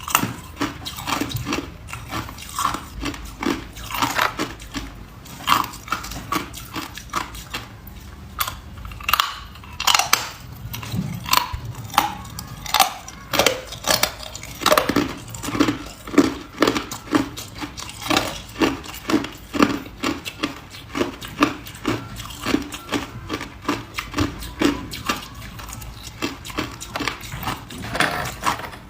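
Someone biting and chewing hard ice, a steady run of sharp crunches about two or three a second.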